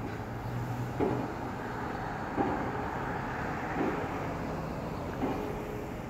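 Pile driver hammering at a railroad bridge: four evenly spaced strikes about a second and a half apart, each followed by a brief ringing tone, over a steady low hum.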